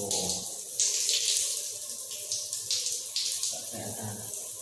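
Rain shower head spraying water onto a tiled floor, an uneven hiss of falling water. It is fed by gravity from a rooftop water tank with no booster pump.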